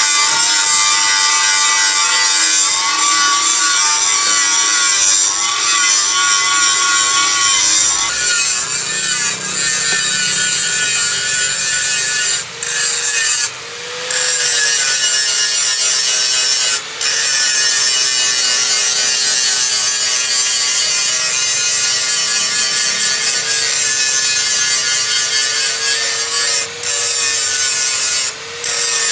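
A power tool grinding on a knife: a continuous harsh noise with a motor tone that wavers under load, broken off briefly several times.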